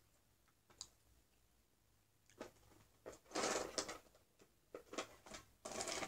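Handling noise: a brief rustle about three and a half seconds in, then a few light clicks and taps as small objects are picked up and moved.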